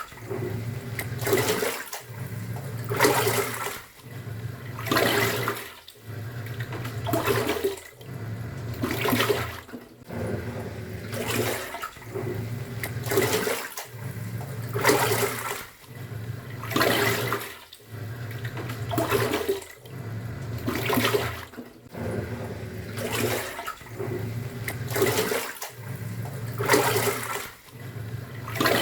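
Top-loading pulsator washing machine agitating in its wash cycle: the motor hums while the pulsator turns for about a second and a half, pauses, and the water swishes and splashes, repeating about every two seconds.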